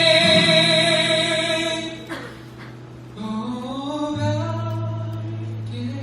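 Live solo singing with acoustic guitar accompaniment: a long sung note with vibrato ends about two seconds in, and after a short lull a softer rising phrase comes in over low guitar notes.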